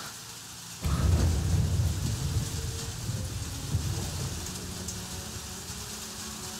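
A sudden deep boom about a second in, rumbling and fading over several seconds over a steady hiss: a thunder-like hit in a film soundtrack, with a low held drone underneath.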